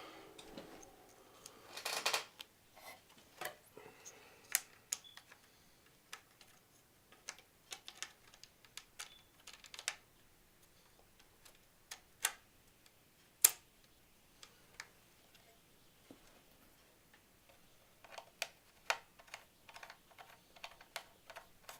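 Scattered light clicks and taps of small metal and plastic parts as a CPU water cooler's backplate and its mounting hardware are fitted to a motherboard, with a brief rustle about two seconds in and one sharper click about halfway through.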